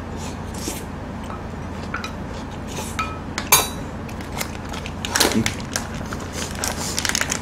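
Tableware clattering: a sharp metallic clink with a brief ring about three and a half seconds in as a steel bowl and spoon are set down, then knocks and a run of quick clicks as plastic takeout lids and containers are handled.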